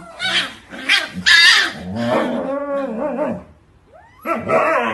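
Husky dogs vocalising: short sharp yelps, then a long wavering whine, and more yelping and whining after a brief lull near the end, as an adult husky mouths its puppies.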